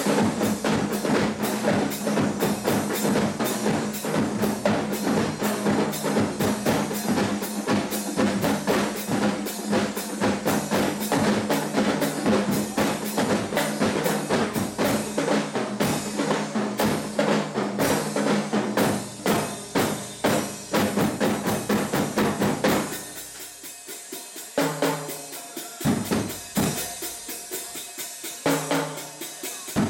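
Drum corps playing snare drums, a bass drum and hand cymbals in a fast, dense rhythm. About three-quarters of the way through it drops to sparser, quieter strokes.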